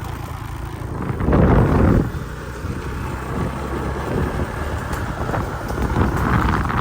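Motorcycle riding along a road, its engine running steadily under wind buffeting the microphone, with a louder gust about a second and a half in and again near the end.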